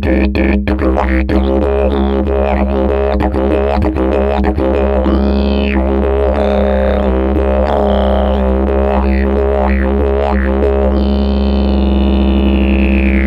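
Didgeridoo playing an unbroken low drone, its overtones sweeping up and down. There are rhythmic pulses near the start and a long falling sweep near the end.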